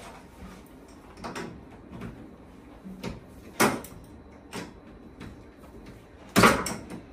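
Irregular metallic knocks and clanks of a hand tool on a boiler's pipe fittings as the copper pipework is being disconnected. The loudest knock comes near the end.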